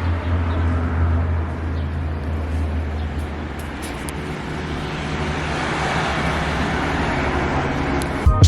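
Road traffic noise: a steady low rumble that eases after a few seconds, then a hiss that swells toward the end, as of a car going by. Music with a beat starts right at the end.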